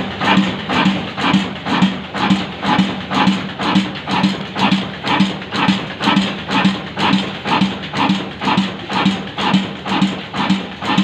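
Slow-speed single-cylinder 'desi kala' diesel engine, rated 35 HP at 275 RPM, running steadily while driving belt-driven mill machinery. It gives an even, heavy beat about twice a second, one firing stroke every two turns of the flywheel, over a steady hum.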